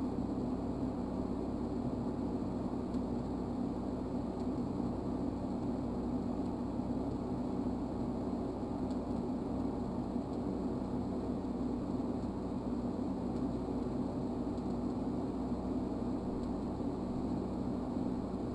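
TIG welding arc burning steadily on a steel angle-iron edge joint: an even, unbroken hum with no crackle or spatter.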